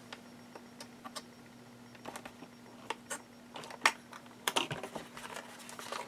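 Scattered light clicks and taps of a slide paper trimmer's cutting head being worked along its rail over kraft cardstock, with a faint steady hum underneath.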